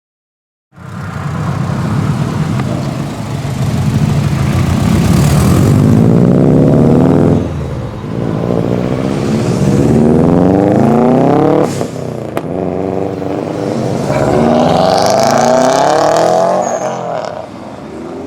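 Subaru Impreza's flat-four boxer engine accelerating hard. The engine note climbs three times, with a short dip in level between each climb.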